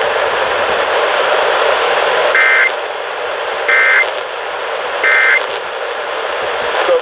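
Emergency Alert System end-of-message data code: three short squawks of two-pitch digital tones about a second apart, over steady radio static. The static cuts off abruptly at the very end.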